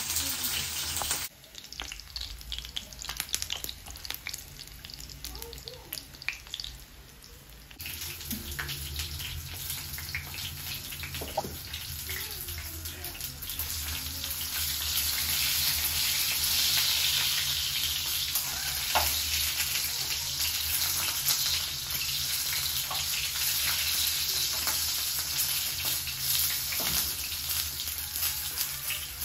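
Sausages and meat slices frying in a pan, a steady sizzling hiss that grows louder partway through, with a few clicks of a slotted spatula turning them.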